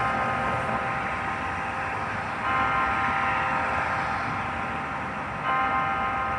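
A church bell tolling, struck about every three seconds, twice here. Each stroke rings on with several steady overtones, over a steady background rush.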